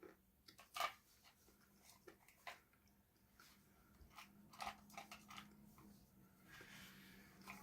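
Close-miked eating: scattered crisp bites and crunchy chewing, a few sharp crackles with the loudest about a second in.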